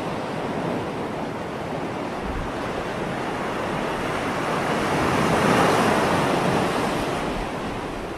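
Ocean waves breaking and washing on a shore: a steady rush of surf that swells to a louder wave about halfway through, then ebbs.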